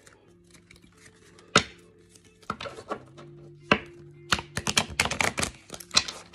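Deck of tarot cards shuffled by hand close to the microphone: separate sharp card slaps and taps, then a quick flurry of cards riffling together about four to five seconds in.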